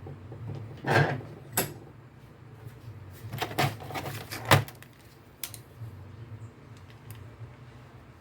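Metal parts of a car starter motor clicking and knocking as they are handled and fitted during bench reassembly: a handful of sharp clicks over about five seconds, the loudest about four and a half seconds in, over a steady low hum.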